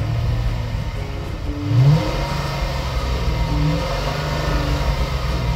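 2003 Ford Thunderbird's 3.9-litre V8 engine accelerating, its pitch sweeping up sharply about two seconds in, then running on steadily under load.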